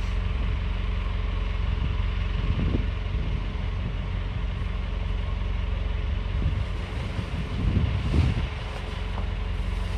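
The engine of a 20-ton steel sailing barge running steadily at low revs while it is manoeuvred alongside a dock. The sound is a low hum with a fine, even pulse, and it swells briefly a little after two seconds in and again around eight seconds in.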